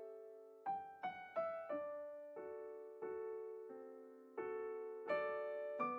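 Soft background piano music: single notes and chords struck every half second to a second, each ringing and fading away.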